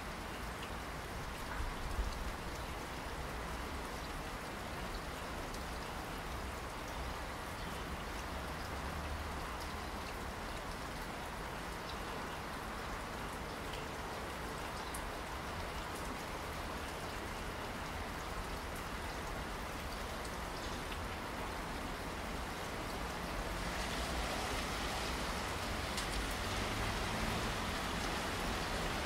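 Steady rainfall with scattered individual drops ticking. About 24 seconds in it turns louder and hissier.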